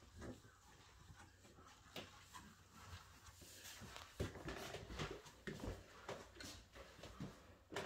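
Faint shuffling footsteps in socks on a hard floor, with scattered light knocks and clicks, busier and louder in the second half.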